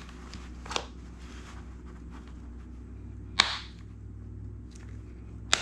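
Three sharp snaps, the loudest about three and a half seconds in, as rubber and metal parts of a Onewheel GT's wheel are worked apart by hand, over a low steady hum.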